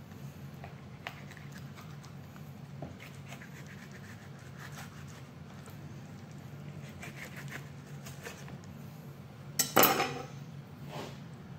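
Knife sawing through a carp fillet against the skin on a wooden cutting board: faint, scattered scratching strokes over a steady low hum. A loud sharp knock or clatter comes near the end.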